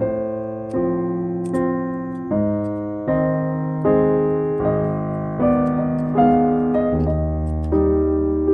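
Background piano music: chords struck about every second, each note ringing and fading.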